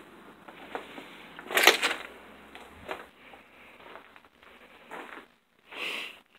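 Footsteps crunching and scraping over debris on a bare floor, irregular and uneven. There is a louder scrape about a second and a half in and another shortly before the end.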